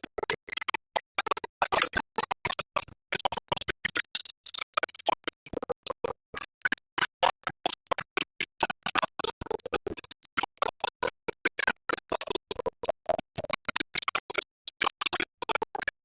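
Glitchy, stuttering music: sound chopped into short bursts, several a second, with abrupt silent gaps between them, like scratching.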